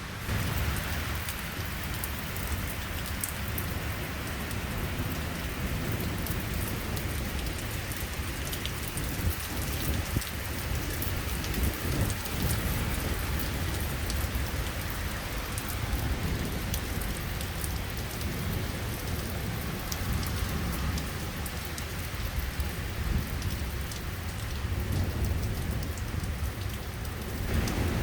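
Heavy rain pouring down in a thunderstorm, with a steady low rumble underneath and many small drop ticks, constant throughout.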